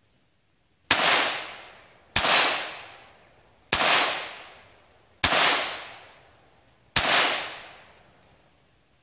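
Five single pistol shots fired at a slow, even pace, roughly one every one and a half seconds, each followed by a long echo dying away.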